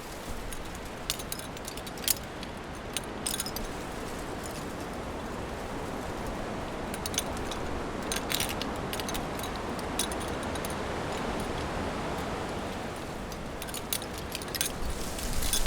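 Wind chimes tinkling in scattered clusters of light strikes over a steady rush of wind, with the wind growing stronger near the end.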